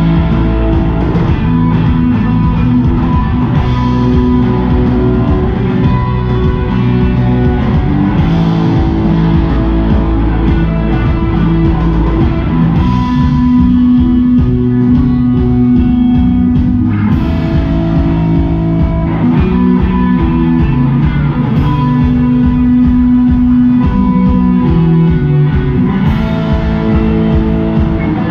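Live rock band playing an instrumental passage: electric guitars holding sustained notes over bass guitar and a drum kit.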